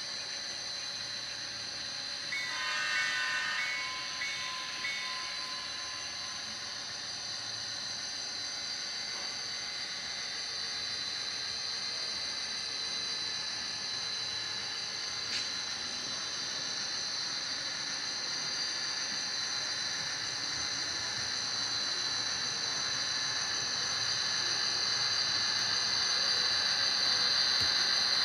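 Model Rio Grande GP40-2 diesel locomotive's sound system blowing its horn about two seconds in. After that comes a steady running sound with a high whine, growing louder as the train approaches.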